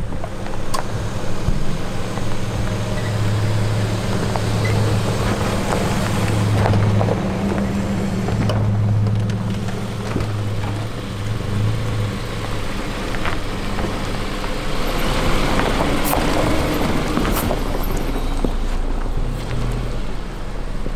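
Vehicles driving on a gravel forest track: a steady low engine drone for the first half, then a Subaru Crosstrek's tyres crunching and ticking over gravel and small stones as it drives past.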